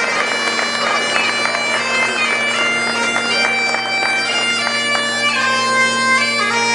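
Bagpipes playing a tune over steady drones, the melody moving on to longer held notes near the end.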